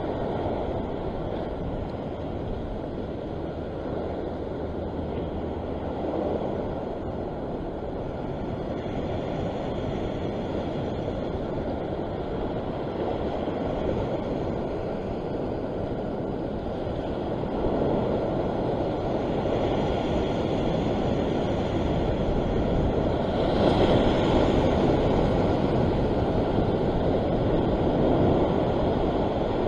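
Surf washing against a rocky sea ledge, a steady rush mixed with wind on the microphone, swelling louder in surges from about two-thirds of the way through.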